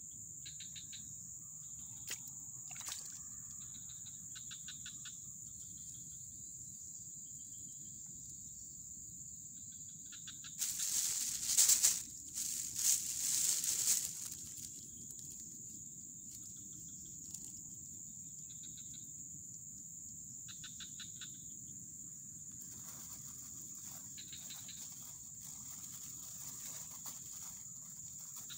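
Steady high-pitched drone of crickets or other insects, with faint short chirping calls now and then. A loud rustling burst comes about eleven seconds in and lasts some three seconds.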